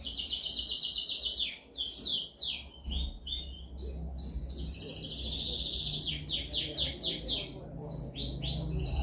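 Domestic canary singing: long runs of fast trills and quick repeated downward-sweeping notes, high-pitched, over a faint low hum.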